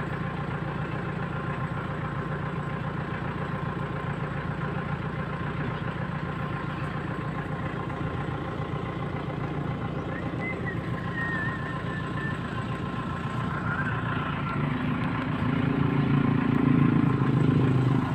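Tractor engine idling steadily, growing a little louder in the last few seconds.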